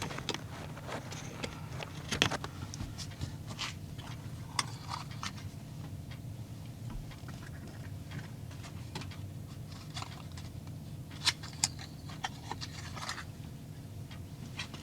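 Irregular clicks, scrapes and small rattles of a thermal turn-signal flasher relay being pulled from its socket and a replacement plugged in, over a low steady hum. The loudest clicks come about two seconds in and twice close together near the end.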